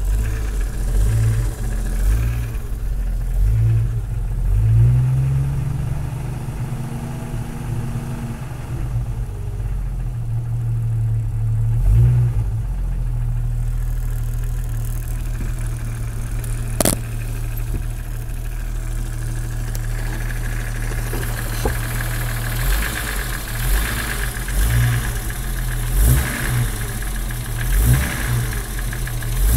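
1997 Jeep Cherokee XJ engine running cold at idle, given a few light revs, with the knocking the owner takes for piston slap. A single sharp click comes about halfway through, and several quick throttle blips come near the end.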